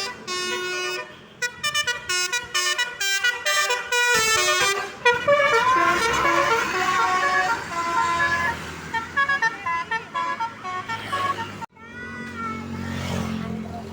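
A bus's telolet musical horn playing a quick melody of short notes, several horn tones sounding together and changing pitch note by note. Near the end the tune breaks off, and a few curving horn notes sound over a low engine rumble.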